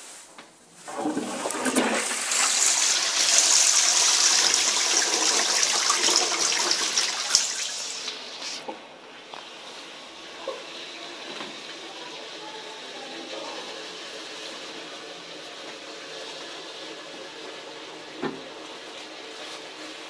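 Lecico Atlas toilet flushing a large load of toilet paper: a loud rush of water through the bowl builds about a second in and lasts some seven seconds, then dies down to a quieter, steady run of water.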